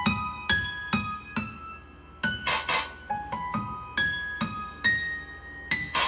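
Keyboard music with an electric-piano sound playing through a Tribit XSound Mega Bluetooth speaker. It is a melody of single notes, about two a second, with two short percussive hits about halfway through.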